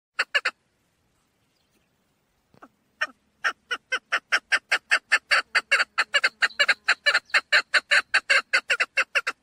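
Female chukar partridge calling: three quick sharp notes, then after a pause a rapid, even run of chuk notes at about five a second.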